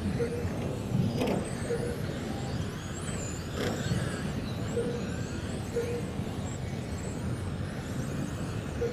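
Electric 1/10 touring cars racing, their motors whining high and gliding up and down in pitch as they accelerate and brake, over a steady noise of tyres on carpet. Two sharp knocks, about a second in and at about three and a half seconds, and short beeps now and then.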